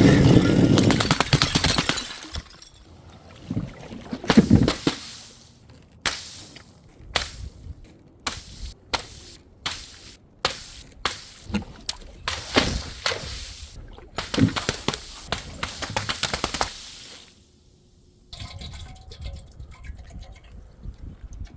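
Objects dropped and crushed one after another: a run of sharp impacts with crunching and splashing liquid. The impacts come thick and fast, stop briefly, then return fainter near the end.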